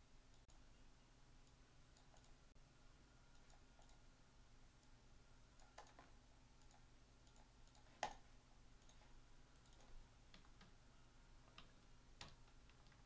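Faint, scattered clicking of a computer keyboard and mouse, with one sharper click about eight seconds in, over a low steady hum.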